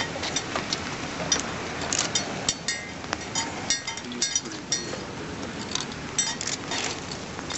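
Irregular light clinks and ticks, a few each second, some with a brief bright ring, over a steady background hiss.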